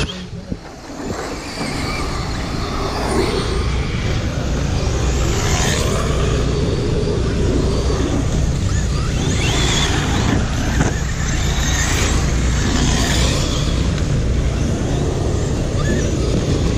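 Radio-controlled cars racing on a dirt oval, their motors whining up and down in pitch as they come past, over a steady low rumble.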